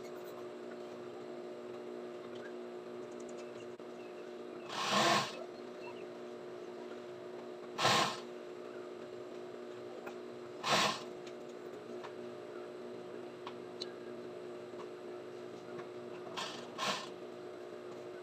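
JUKI industrial sewing machine: the motor hums steadily, with five short bursts of stitching spaced a few seconds apart. The last two bursts come close together near the end.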